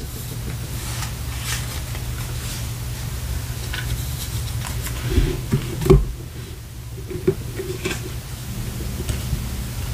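Steady low hum and hiss of room noise, with a few soft knocks and rustles about halfway through.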